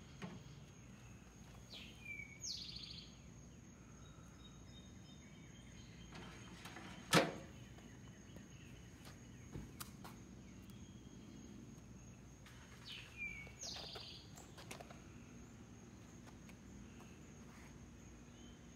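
Outdoor ambience with a bird calling twice, each call a quick falling chirp, and one sharp knock about seven seconds in. A faint steady high whine sits underneath.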